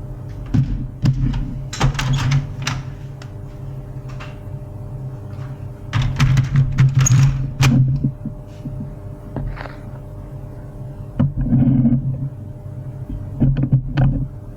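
HP LaserJet 401 laser printer mechanism: a steady motor hum under repeated clicks and knocks, with louder spells about six seconds in and again near the end.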